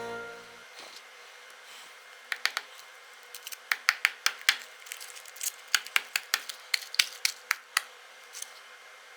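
Background music ending, then a run of sharp, irregular clicks and snaps from small hard objects being handled, a few a second for several seconds.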